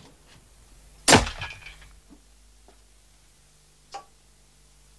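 A hammer strikes a piston down into a sealed cylinder: one sharp bang about a second in, with a brief ringing tail, as the squeezed fuel ignites from compression heat alone, the way a diesel fires without a spark. A few faint clicks follow, with a sharper click near the end.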